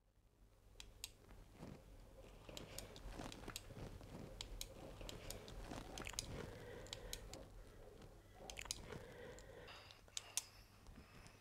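Faint, irregular small clicks and crunchy rustles in a quiet room over a low steady hum, with a few sharper clicks near the end.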